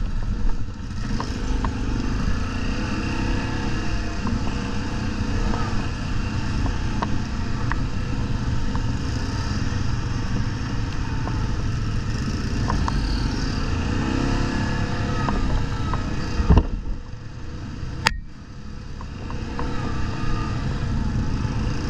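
Quad bike (ATV) engines running, revving up and down twice, with a loud knock and a short drop in engine noise about three quarters of the way through.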